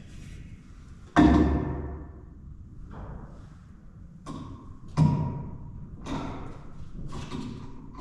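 Knocks and thuds of 2x4 boards being handled and set in place: a loud thud about a second in, another about five seconds in, and several lighter knocks after it, each ringing briefly.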